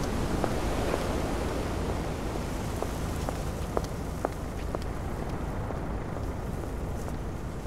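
Steady outdoor night noise with a low rumble, scattered light crackles, and a slow fade in level.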